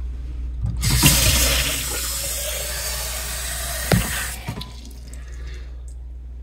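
Water from a kitchen tap running into a drinking glass, a steady hiss of about three and a half seconds that stops with a sharp knock about four seconds in.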